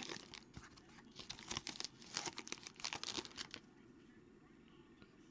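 Foil wrapper of a Topps Tier One trading-card pack crinkling and tearing as it is peeled open by hand, a run of quick crackles lasting about three and a half seconds.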